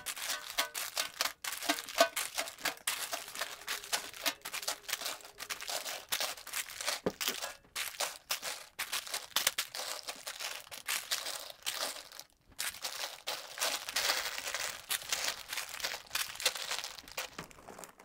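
Plastic chip bags crinkling and rustling as they are handled and packed together: a dense run of irregular crackles with a couple of brief pauses.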